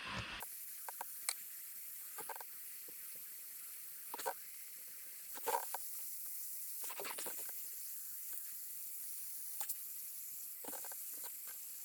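Steady faint hiss with scattered light clicks and small knocks from hands handling wires and parts.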